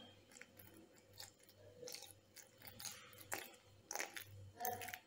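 Small wire whisk stirring wheat flour in a glass bowl: faint, irregular scraping and crunching strokes as the batter is mixed.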